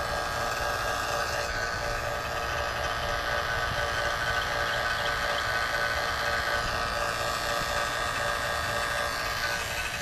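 Electric AC vacuum pump running steadily with an even whine, pulling a vacuum on the truck's R134a air-conditioning system before recharging.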